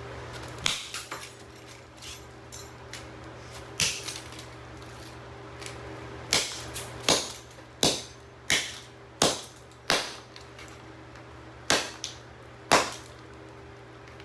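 Hammer blows smashing a Legrand Pass & Seymour E42190 GFCI receptacle: about a dozen sharp cracking impacts, a few scattered at first, then a quicker run of roughly one every 0.7 seconds.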